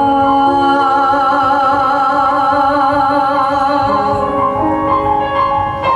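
A singer holds one long note with vibrato over sustained musical accompaniment; the held note fades about four seconds in and the accompaniment carries on with changing chords.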